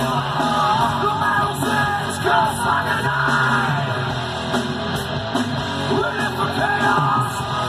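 Rock song playing: a voice singing over a full band with electric guitar.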